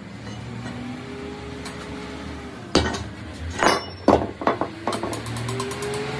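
Heavy metal engine parts clanking: a cluster of sharp metallic knocks and clinks about three to five seconds in, over a low steady workshop background.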